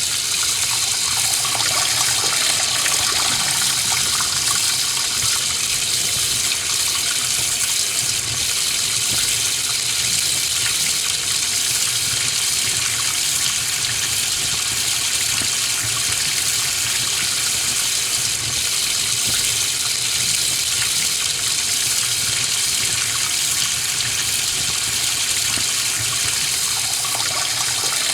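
Kitchen sink tap running in a steady stream, water splashing into the basin.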